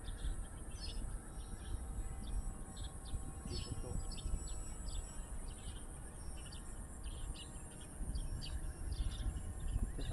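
Small birds chirping, many short calls scattered throughout, over a low rumble of wind on the microphone and a steady high hiss.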